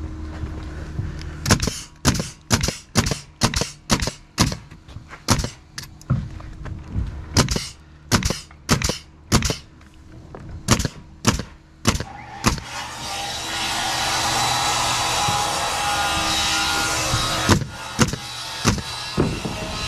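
Nails being driven into plywood roof sheathing: a run of sharp strikes, about two a second, stopping about twelve seconds in. A steady rushing noise follows for about five seconds, then a few more strikes near the end.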